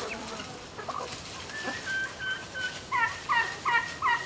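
Domestic turkeys calling: a few short, high, steady peeping notes about halfway through, then four loud calls in quick succession near the end.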